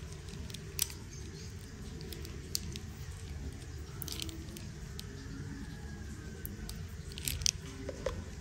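Light clicks and crinkles from the packaging and parts of a Cardo Packtalk Bold Duo motorcycle intercom set being handled during unboxing, a handful spread out with a small cluster near the end, over a steady low hum.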